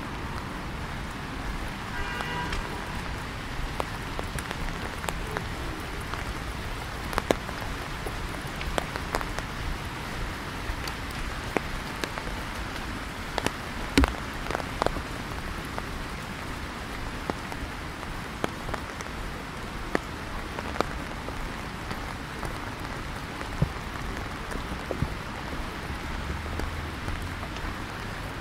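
Steady rain falling on paths and foliage, with individual drops landing close by as sharp taps at irregular intervals.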